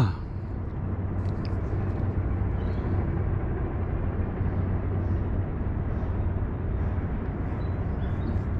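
Steady low hum of a distant engine over a constant outdoor noise floor, with a few faint high chirps.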